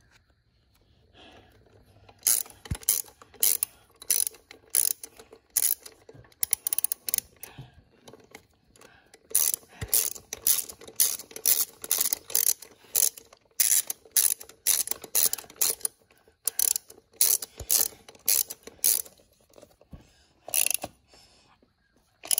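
Hand socket ratchet clicking in quick back-and-forth strokes, about two clicks a second, as it runs a wheel nut down onto its stud. The clicking starts about two seconds in.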